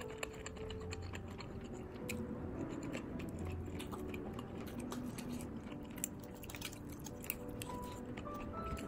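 Metal fork and spoon clicking and scraping lightly against a plate while twirling spaghetti, with many small irregular clicks. Faint background music underneath.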